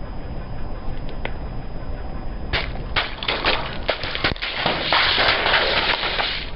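Brittle objects cracking and crunching as a car tyre rolls over them: a few sharp cracks begin about two and a half seconds in, building to a dense crunching near the end, over a steady low rumble.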